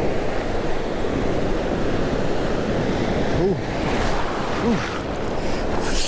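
Breaking surf washing in foamy waves right over a GoPro sitting at the waterline, a steady rushing wash of water and spray close on the microphone.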